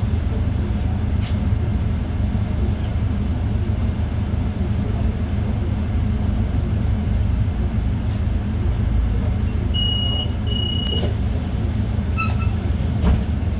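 City bus in motion, heard from inside the cabin: a steady low engine and road rumble. About ten seconds in, two short high beeps sound, and a brief double chirp follows near the end.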